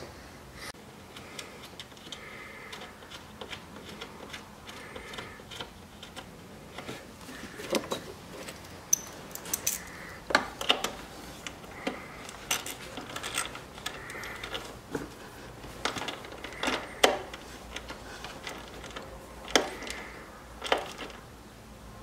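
Small hand wrench clinking and clicking against the battery terminal bolts and nuts as the wire connections are tightened: irregular light metal taps, several close together in the second half.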